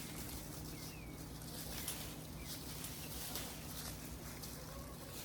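Faint scattered bird calls, a few short chirps, over a steady outdoor background hum.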